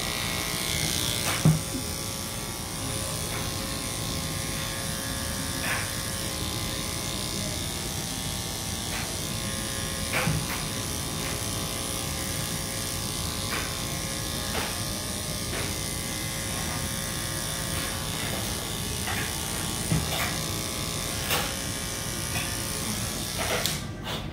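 A small electric pet-grooming tool's motor running steadily, with a few short knocks, the loudest about a second and a half in.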